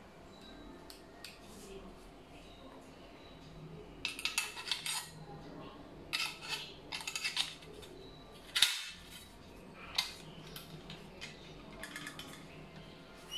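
Hard plastic and metal parts of a Philips air fryer basket and handle clicking and clattering as they are handled and fitted together: several quick runs of rattling clicks, the sharpest about eight and a half seconds in, then a few single clicks.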